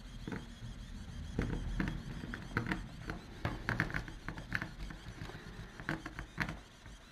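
Irregular light clicks and scrapes as a 3D pen's nozzle lays molten filament along a ridged plastic panel, over a low steady hum.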